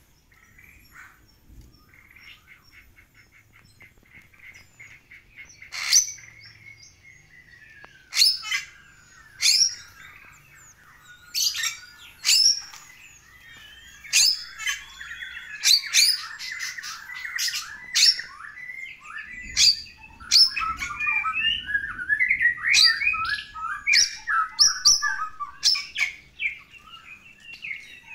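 Bali myna in full song: a quiet, rapid run of repeated notes at first, then loud, sharp whistled cries every second or two over a fast chattering warble. The song gets busier from about eight seconds in and is densest near the end.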